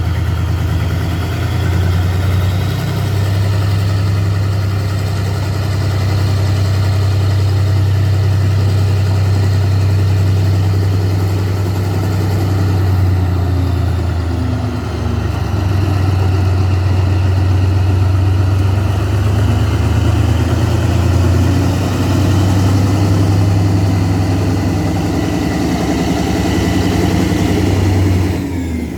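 Sri Lanka Railways W3-class diesel locomotive's engine running steadily: a deep, even hum with slight shifts in pitch.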